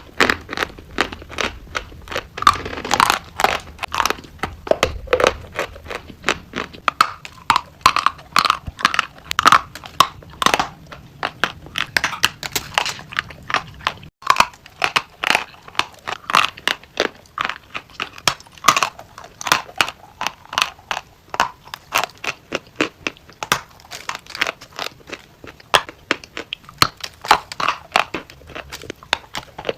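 Something crisp being crunched over and over, several sharp crunches a second in an uneven rhythm.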